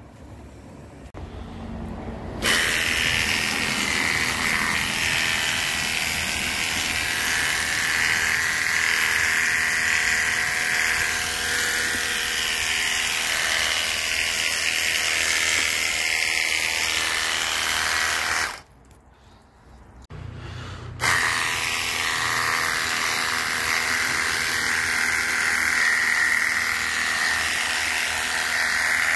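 Cordless 21 V battery washer gun spraying, its small pump motor whining steadily under the hiss of the spray. It starts up about two seconds in, cuts off about two-thirds of the way through, and starts again about two seconds later.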